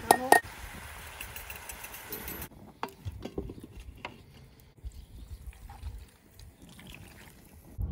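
Potato chunks tipped from a metal bowl into a cast-iron Dutch oven, clattering twice as they land, followed by a hiss of sizzling that cuts off about two and a half seconds in. Then quieter scattered knocks of a wooden spoon stirring the pot.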